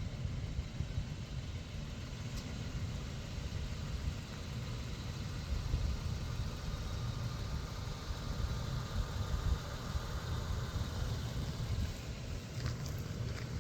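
Wind buffeting the microphone: a steady, fluctuating low rumble, with a few light clicks near the end.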